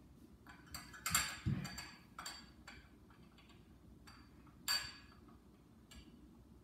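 Small glassware and a spoon being handled on a glass tabletop: a string of light clinks and taps, some with a brief glassy ring, the loudest a little before five seconds in.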